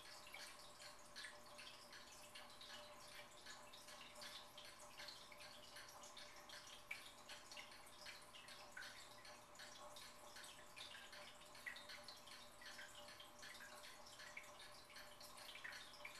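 Fish tank water trickling and dripping, faint: a dense, irregular patter of small droplets over a low steady hum.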